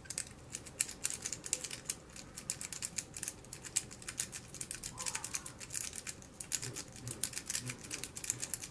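Sparrows Worm rake (R10H) raking the pin stack of a Master No. 3 padlock under tension: rapid, irregular light metallic clicking and scraping, many clicks a second, the lock not yet opening.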